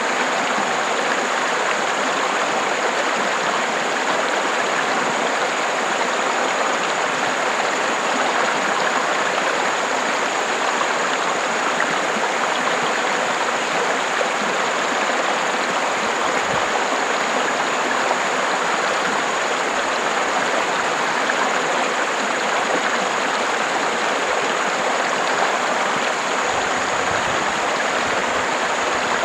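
River water flowing steadily, an even rush of running water.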